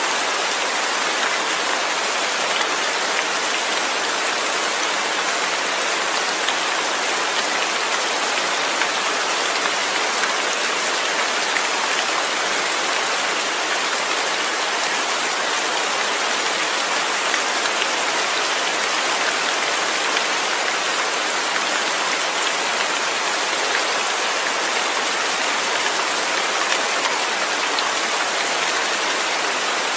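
Steady heavy rain falling, a dense even patter of drops hitting surfaces.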